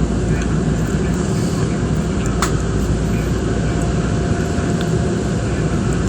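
Steady rumble and hiss inside an electric train standing at a stop signal, with a single sharp click about two and a half seconds in.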